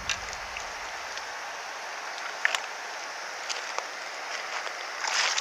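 Steady outdoor hiss of riverside water ambience, with a few faint ticks. The noise grows louder and rougher near the end.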